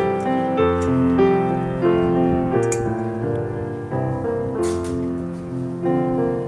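Piano music, a slow melody over sustained chords.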